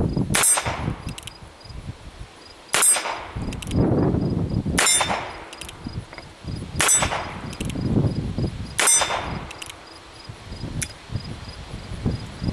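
Colt Frontier Scout .22 LR single-action revolver fired five times, about two seconds apart, each shot followed by the clang of a steel plate target being hit, with faint clicks between shots.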